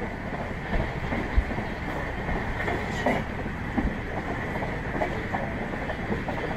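Passenger train running at speed, heard from on board: a steady rumble with wheels clattering and knocking irregularly over the track.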